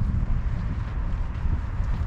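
Wind buffeting the microphone outdoors: an uneven, gusty low rumble.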